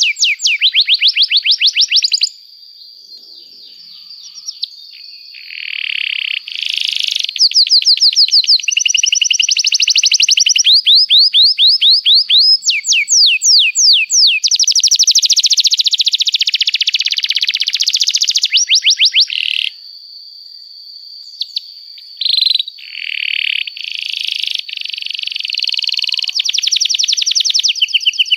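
Domestic canary singing a long song of fast trills, each a rapid run of repeated high chirps, changing from one trill to the next, with two short pauses, one a couple of seconds in and one about two-thirds of the way through. A thin steady high note runs beneath much of the song.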